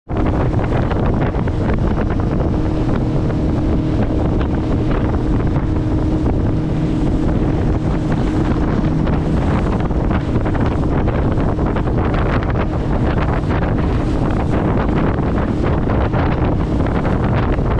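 Wind buffeting the microphone on a center-console boat running across open water, over the steady hum of the boat's engine.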